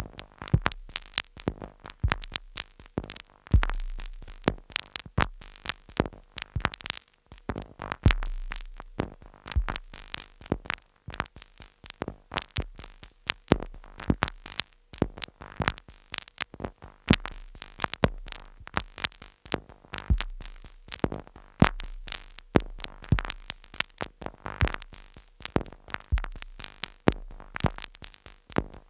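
Two Behringer Neutron analog synthesizers playing a dry, step-sequenced glitch pattern: a dense, irregular stream of sharp clicks and short noise hits, with deep bass notes coming and going underneath.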